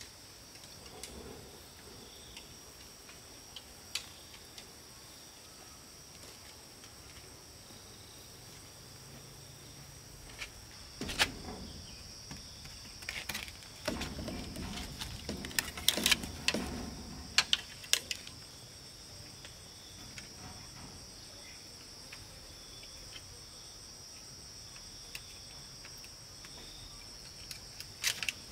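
Steady high-pitched insect chorus of crickets, with a cluster of sharp knocks and clatter in the middle as bamboo poles are handled and knocked together, and a few more knocks near the end.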